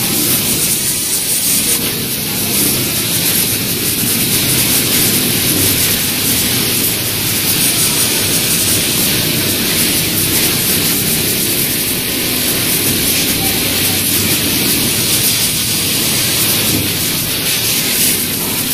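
Steady hissing din of sewing machines running on a garment factory floor, with a CNC pattern sewing machine stitching a cushion piece in its template.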